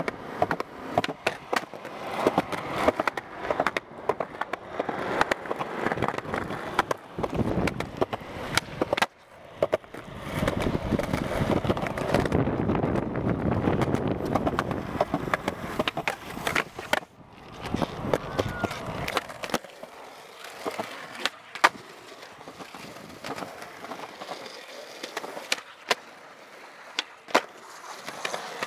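Skateboard wheels rolling over concrete, with sharp clacks of the tail popping and the board landing during flatground tricks. The rolling stops and starts abruptly several times and is fainter in the last third.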